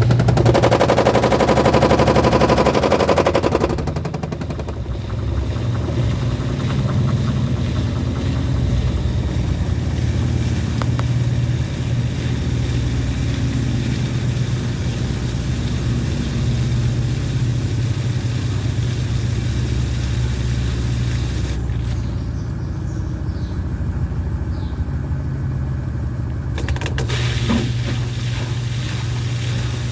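Midea 13 kg washing machine in its spin cycle: a steady low drone with a fast, continuous rattling clatter, loudest in the first few seconds. The machine is making abnormally loud noise while spinning.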